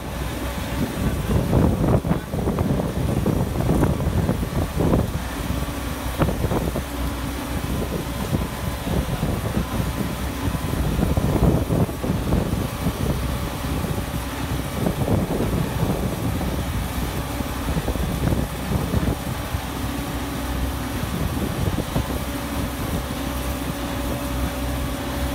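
Cat AP355F tracked asphalt paver working, its diesel engine running with a steady hum while a tipper truck feeds asphalt into its hopper. Uneven noisy surges come and go over the hum.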